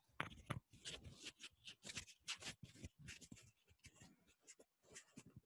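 Faint, irregular rustling and scratching, a quick run of short strokes, like something being handled or rubbed close to the microphone.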